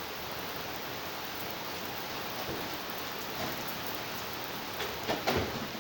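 Steady heavy rain hissing as it falls on hard surfaces, with a few brief knocks near the end.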